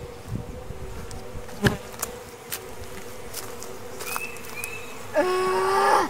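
Honeybees buzzing around a freshly stocked hive, a steady hum, with one bee buzzing loudly close by near the end. A single sharp knock about one and a half seconds in.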